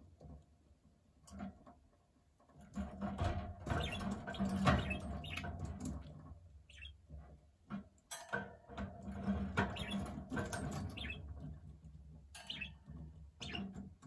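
Budgerigar warbling and chattering, a mix of squeaks, clicks and grating notes, in two long bouts that start about three seconds in and about eight seconds in, with a few short squeaks between.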